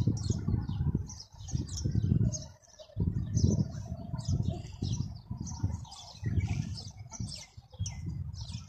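Many small birds chirping steadily. Low rumbling buffets on the microphone come and go every second or so while the playground spinner turns.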